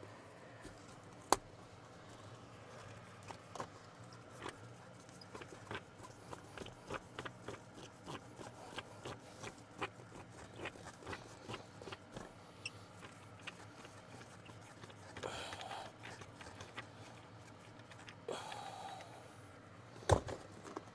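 Irregular light clicks and taps of hand tools and parts being handled, with two brief scraping rustles and a sharp knock near the end, as the shifter area of a 2003 Chevy Silverado 2500 is taken apart.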